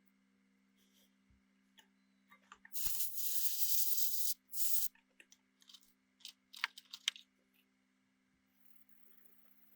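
A loud hiss lasting about a second and a half, a shorter hiss just after, then a scatter of small clicks and taps, over a steady low hum.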